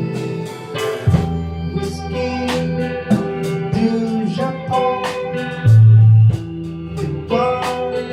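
Live progressive-rock / jazz-fusion band playing an instrumental passage: keyboards with an organ-like sound and electric guitar over drums with steady cymbal strokes. A loud low bass note is held for about half a second about six seconds in.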